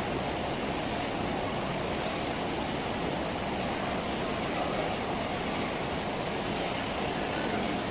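A 360° cylinder UV printer running as it prints onto a rotating bottle: a steady, even rushing machine noise with no distinct clicks or tones.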